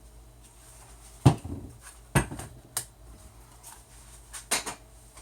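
Hard objects being handled: four sharp knocks and clatters, the first two the loudest.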